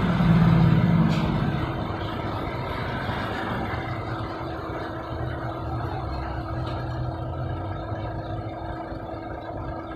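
Diesel engine of an Isuzu Forward dump truck running, louder for the first second or so, then settling to a steady idle with a constant hum.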